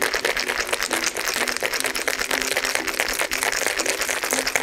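Ice cubes rattling hard inside a Boston shaker (metal tin over a mixing glass) shaken vigorously to chill a cocktail: a rapid, continuous clatter.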